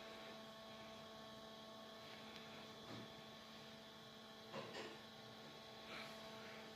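Near silence: a faint steady electrical hum, with a few faint brief sounds about halfway and near the end.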